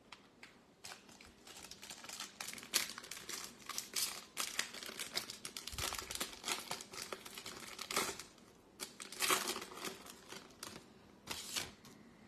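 Foil wrapper of a Topps Stadium Club Chrome trading-card pack crinkling and tearing as it is opened by hand, a dense run of sharp crackles with a couple of short pauses.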